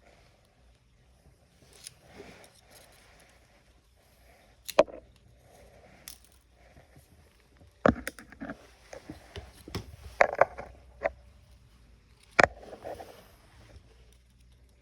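Prying tools clicking, tapping and scraping against a phone's glued screen and frame as the broken display is worked loose, with a few sharp clicks standing out about five, eight, ten and twelve seconds in.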